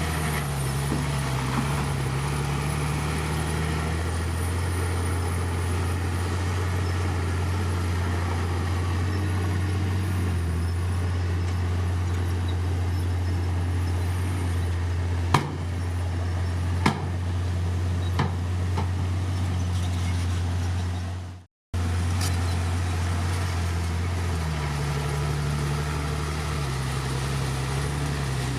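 Heavy diesel engine of a bulldozer running steadily, its low note shifting slightly in pitch. There are three sharp knocks around the middle, and all sound cuts out for an instant about three-quarters of the way through.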